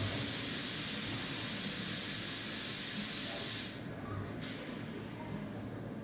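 A steady hiss that cuts off suddenly after about three and a half seconds, followed by a second, shorter hiss, over a low background hum.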